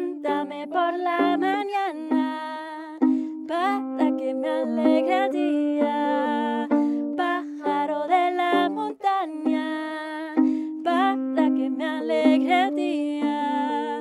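Acoustic duo of saxophone and a small strummed string instrument playing without words, the saxophone carrying the melody with some wavering, gliding notes over steady low chords, in the song's closing instrumental passage.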